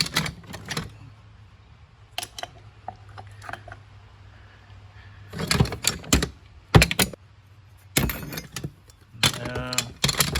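Caster wheels and other metal hardware clattering and clunking as they are rummaged through and handled, in several separate bursts of knocks.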